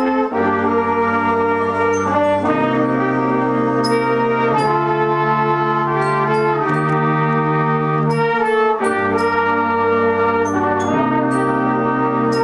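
A junior brass band (euphoniums, baritones, trombones, basses) playing slow, full sustained chords that change about every two seconds, with a brief break between chords about eight and a half seconds in.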